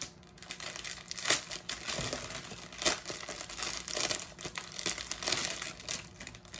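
Clear plastic packaging bag crinkling as it is handled and opened, in irregular crackles, the loudest about a second and a half in and again near three seconds in.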